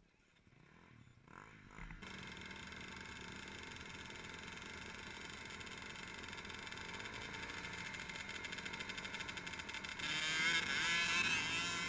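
Several dirt bike engines firing up and running together at the start line, building within about two seconds into a steady mixed engine drone. About ten seconds in a nearby engine revs up loudly for a couple of seconds.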